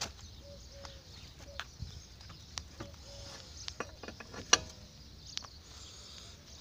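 Steel wheel brace clicking and knocking on the wheel nuts of a steel car wheel as they are tightened by hand. Scattered clicks, with one sharper knock about four and a half seconds in.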